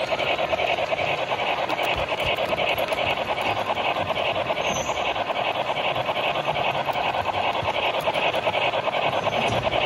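O gauge model steam locomotive running along three-rail track: a steady rasping rumble of wheels and motor with a quick, even pulse.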